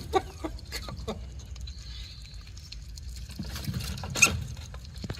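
Ferrets scrabbling and scratching about: scattered light clicks and rustles over a low steady rumble, with one sharper click about four seconds in.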